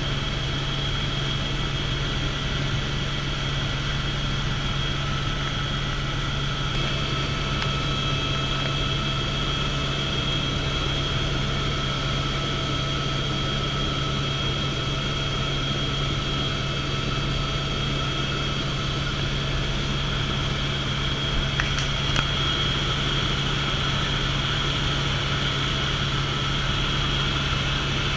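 Helicopter turbine and rotor noise heard from inside the cabin in flight: a steady low drone with a steady high whine over it. There is one brief click about three-quarters of the way through.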